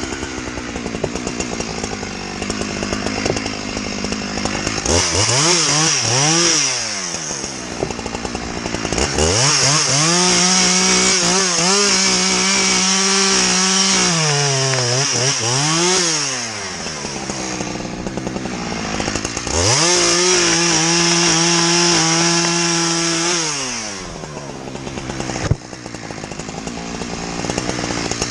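Two-stroke chainsaw revved to full throttle and held there in three long stretches, dropping back to a rough idle between. A single sharp knock sounds a few seconds before the end.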